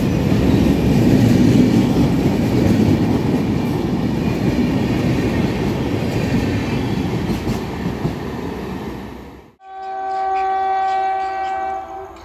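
Shatabdi Express passenger coaches rushing past on the rails, a steady rumble with wheel clatter that fades after about eight seconds. After a sudden cut, a WAP4 electric locomotive's horn sounds one steady blast of about two seconds near the end.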